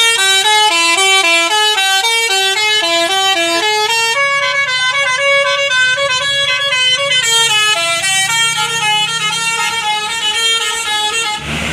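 Bus 'telolet basuri' musical horn playing a fast tune of short horn notes, several a second, with a stretch of longer held notes about a third of the way in. It cuts off abruptly just before the end.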